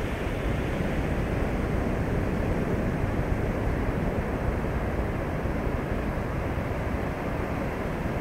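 Steady, low rumbling roar of a rocket's engines during launch, heard from far away.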